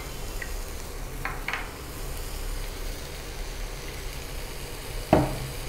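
Sautéed onion, tomato, drumstick leaves and cooked toor dal sizzling steadily in oil in a nonstick kadai on an induction cooktop, with a brief thump near the end.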